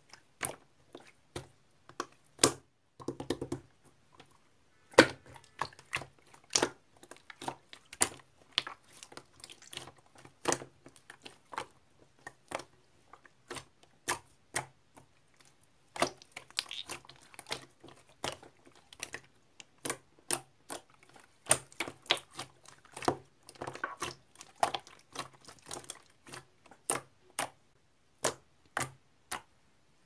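Clear slime with heart-shaped sequins being squeezed, stretched and poked by hand, giving a run of irregular sharp pops and clicks.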